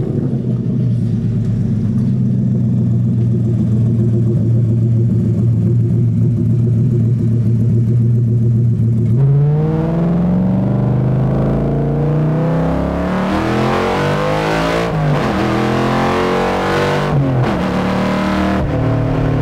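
Ford 5.2-liter V8 of a Factory Five Type 65 Coupe-R race car, heard from inside the cabin. It runs at a steady pitch at first, then about nine seconds in accelerates hard, its note rising and then dropping sharply at each upshift, before settling near the end.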